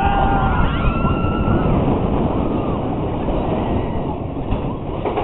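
Floorless roller coaster train running along its steel track, with wheel rumble and wind rushing over the microphone. A few high squeals glide in pitch during the first two seconds, and the noise eases a little as the train slows toward the lift hill.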